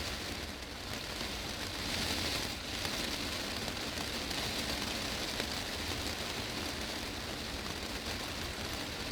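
Heavy rain falling on a glass greenhouse roof: a steady, dense patter of drops on the glass.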